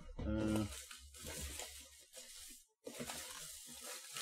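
Packaging rustling and crinkling as items are moved about in a box of snacks, with a short break in the middle. A brief voiced sound is heard just after the start.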